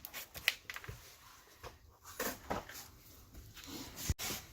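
Scattered light clicks and rubbing from hands working plastic parking sensors out of their clips in a car's rear bumper cover.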